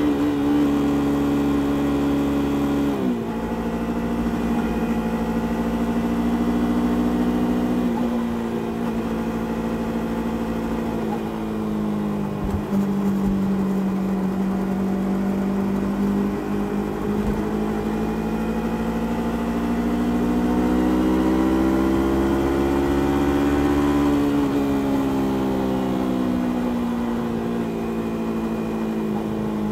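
Engine and stock exhaust of a Yamaha YZF-R3, its 321 cc parallel-twin, heard from the rider's seat while cruising. The engine note drops sharply about three seconds in, holds steady, climbs slowly to a peak, then falls back near the end.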